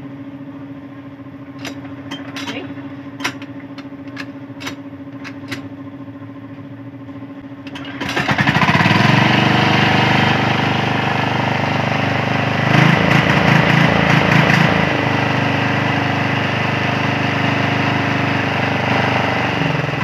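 14 HP Lifan air-cooled engine running at low speed with a few light clicks. About 8 s in it is throttled up to high speed and runs loud and steady, briefly louder still for a couple of seconds in the middle.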